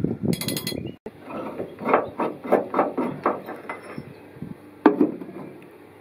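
Ratchet wrench clicking in quick short strokes, a few clicks a second, as a rusty cab-mount bolt is turned out; a single sharp metal clink follows near the end.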